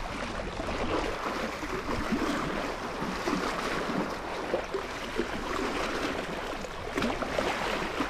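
Shallow seawater lapping and sloshing: a steady watery rush with small irregular splashes.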